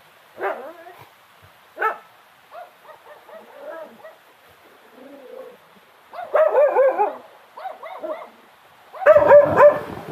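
A dog barking repeatedly in short bursts, with the loudest run of barks near the end.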